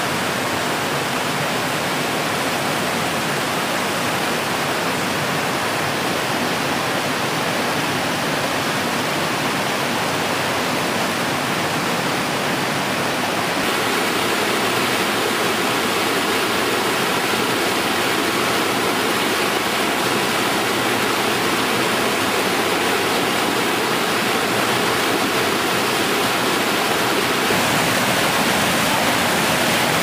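Steady rush of water from a boulder-strewn mountain stream and waterfall. The tone shifts slightly about halfway through.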